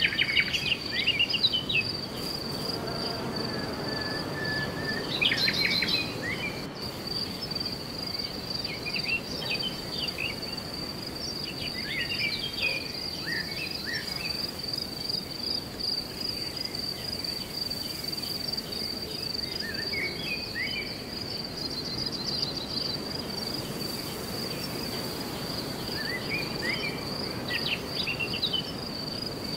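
Steady high-pitched insect trill running without a break, with birds chirping and whistling in short phrases every few seconds over a low background hiss.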